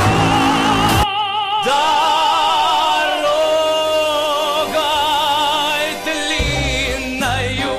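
Hockey arena goal horn sounding for about the first second, then cut off by the goal song over the arena speakers: a singer with heavy operatic vibrato. A bass beat comes in near the end.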